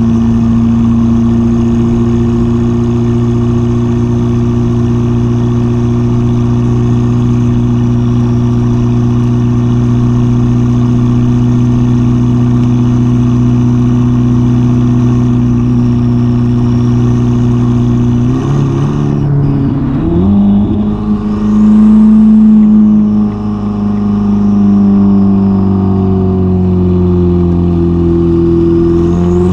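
Ferrari SF90's twin-turbo V8 through a Novitec sport exhaust, with a steady drone at constant cruising speed. About two-thirds through the note breaks and jumps, swells to its loudest for a moment, then sinks slowly as the car slows. The revs climb again right at the end.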